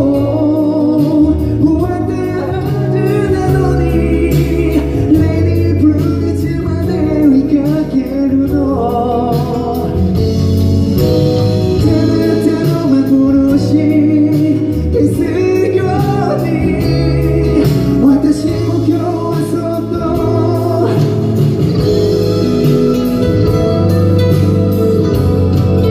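A man singing live into a handheld microphone over backing music, amplified through the hall's sound system.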